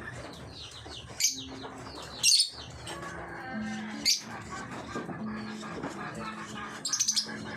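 Birds chirping: continual soft high twittering with several loud, shrill chirps standing out, over a low steady tone.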